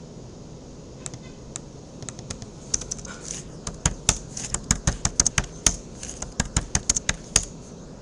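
Typing on a computer keyboard: a few scattered clicks at first, then a quick run of keystrokes from about three seconds in until near the end.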